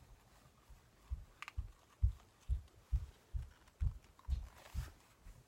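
Chewing close to the microphone, heard as a steady run of dull low thumps about two a second, with a faint click and a short hiss among them.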